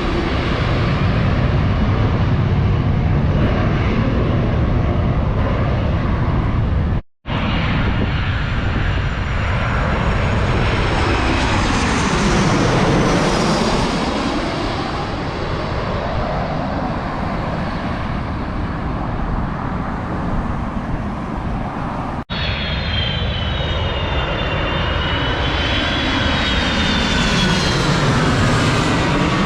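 Jet airliners passing low overhead on final approach to land, a loud continuous engine rumble with a high whine that falls in pitch as each plane goes over, twice. The sound cuts out suddenly for a moment twice.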